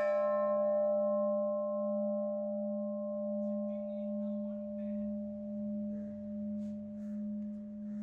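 Large cast-bronze bell ringing out just after being struck: the higher overtones die away within a few seconds while the deep hum lingers, swelling and fading in a slow, even pulse.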